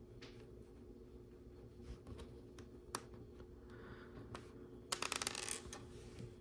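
Small plastic LEGO pieces being handled and pressed together: scattered light clicks, with a quick run of clicking and rattling about five seconds in, over a faint steady hum.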